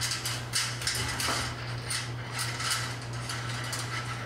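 Electrical wires and a wire-nut connection handled and pushed into a sheet-metal fluorescent fixture channel beside the ballast: a run of irregular scraping and rustling noises, several a second. A steady low hum lies underneath.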